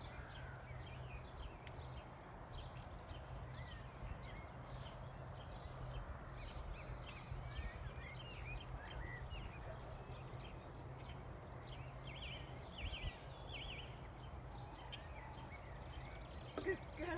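Small birds chirping on and off over a steady low outdoor hum, with the soft steps of a pony walking on grass. Near the end there is a sharp knock as a hoof lands on a wooden marker board.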